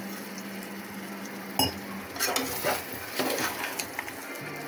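A spoon stirring chicken masala in a pressure cooker pot: repeated scraping strokes against the metal, with one sharp knock about a second and a half in.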